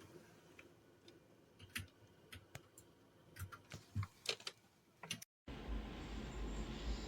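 Scattered light clicks and taps, a dozen or so at uneven intervals. About five seconds in the audio cuts out briefly, and a steady low rumbling noise follows.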